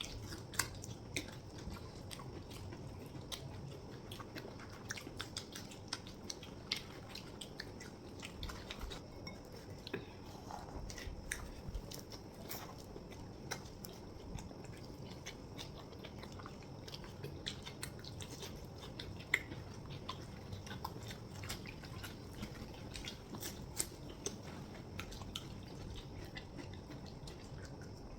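People chewing mouthfuls of chhole bhature, with small wet mouth clicks and smacks scattered throughout.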